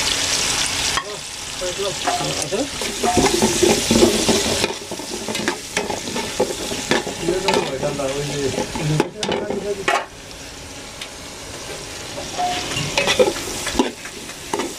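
Sliced onions and green chillies sizzling in hot oil in a metal pot, loudest in the first second as they have just gone in, then easing. A metal spoon stirs them, scraping and clicking against the pot.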